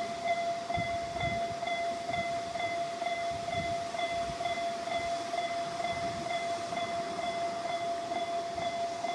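Japanese railway level-crossing alarm ringing its electronic bell tone, about two and a half strikes a second, with an off-pitch, half-hearted sound. Under it, the rumble of a passing train.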